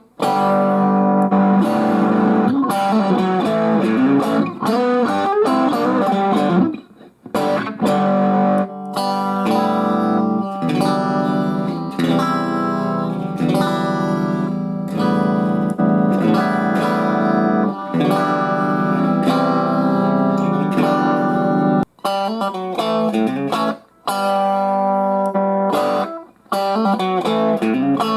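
Electric guitar played through a 2011 Fender Super Champ XD 15-watt tube amp (two 6V6GT power tubes, one 12AX7A preamp tube), ringing chords and note phrases with a few short breaks between passages.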